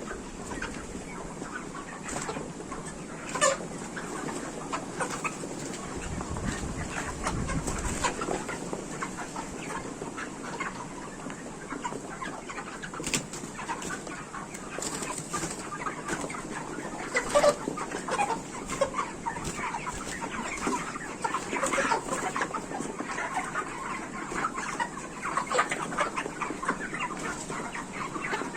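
A large flock of broiler chickens clucking and calling, many birds overlapping, with short sharp clicks here and there. A brief low rumble comes about six seconds in.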